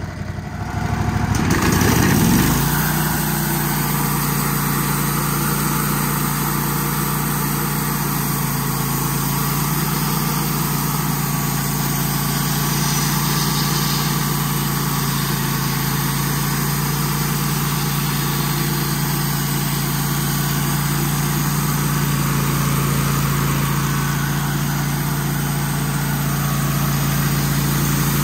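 Kohler engine of a Wood-Mizer portable bandsaw mill revs up about two seconds in, then runs steadily under load as the band blade saws through a large pine log.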